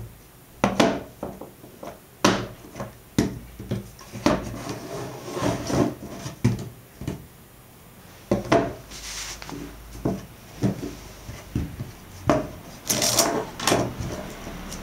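Thin wooden slats of flexible, slit-cut wooden modules clacking and knocking against each other and on a wooden tabletop as they are handled and bent. The knocks come at uneven intervals, with short rubbing or sliding sounds in between.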